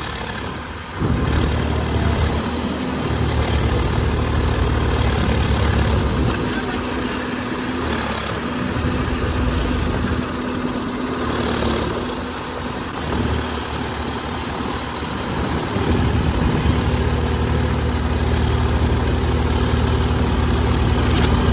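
Diesel tractor engines labouring under load while pulling a tractor stuck in deep mud. The engine note swells about a second in, eases off around the middle, then climbs again.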